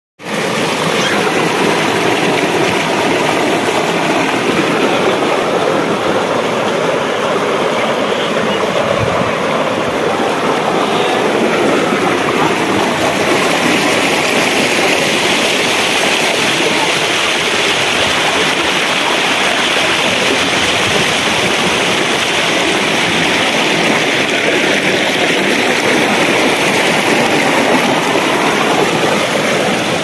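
Rocky mountain stream rushing and splashing over boulders in a small cascade, a steady loud noise of water.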